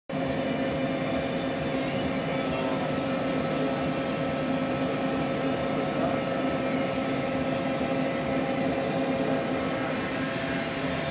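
Steady hum of running machine-shop equipment: several tones held at an even pitch over a constant noise bed, with no distinct mechanical movements.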